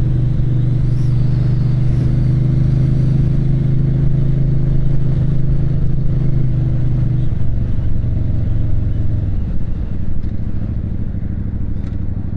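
Motorcycle engine running steadily while riding, with wind rushing over the helmet; about seven seconds in the engine note drops lower as the bike slows down.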